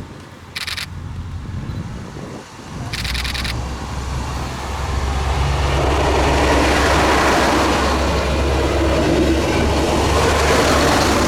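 Two short sharp bursts, then a train approaching and passing: a steady low hum with rushing rail and wheel noise that grows loud over the last half.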